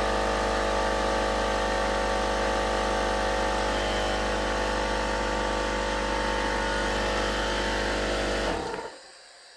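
Ridgid 6-gallon, 150 PSI air compressor running loud and steady, a hum made of many fixed tones, then shutting off about eight and a half seconds in.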